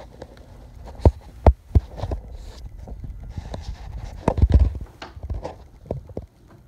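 A six- to seven-week-old kitten pouncing and wrestling inside a brown paper shopping bag: the paper rustles and crinkles, with sharp thumps and knocks of paws and body against the bag and the wooden floor, the loudest cluster about four and a half seconds in.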